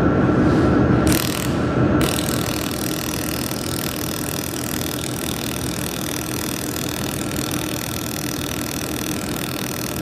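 TIPTOP 200 W handheld laser welder running while welding 2 mm stainless steel: a steady machine hum, a short hiss about a second in, then a steady hiss that starts suddenly about two seconds in and holds as the weld runs along the joint.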